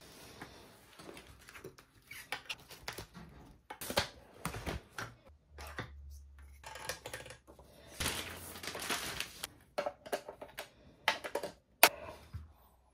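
Unpacking noises from a smart scale's cardboard box and paper insert: rustling, scraping and irregular sharp clicks and taps, with a loud click near the end.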